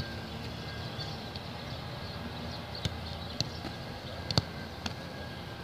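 Several sharp thuds of boots punting rugby balls, the loudest right at the start and more at irregular intervals, over steady background noise.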